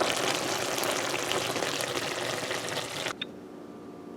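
Chicken liver and gizzard curry sizzling and crackling in the pot as it cooks dry with almost no liquid left. The sizzling stops abruptly about three seconds in, leaving a faint steady hum.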